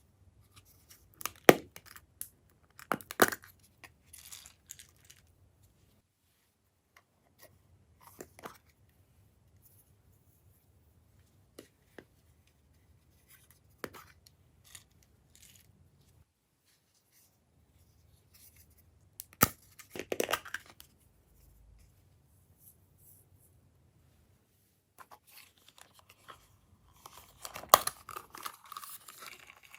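Glossy slime being mixed and squeezed by hand: sticky crackles and pops in short separate bursts, the loudest about a second and a half in, at about three seconds, around twenty seconds and near the end.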